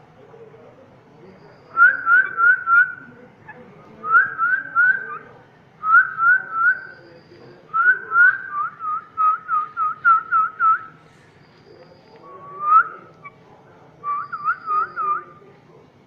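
Pet ring-necked parakeet whistling: quick groups of three to four short rising whistle notes, one longer run of about nine near the middle, then a single upward whistle and a last group of four.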